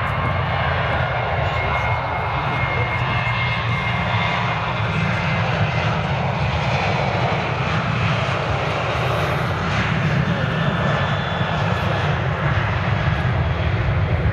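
Ryanair Boeing 737-800's twin CFM56 turbofan engines at take-off thrust: a steady, loud jet roar with deep rumble and a faint whine as the airliner accelerates down a wet runway on its take-off roll.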